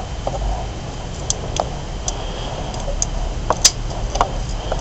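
Scattered light clicks and taps from small parts of an opened SanDisk Sansa MP3 player being handled and pried at, the sharpest click about three and a half seconds in, over a steady low hum.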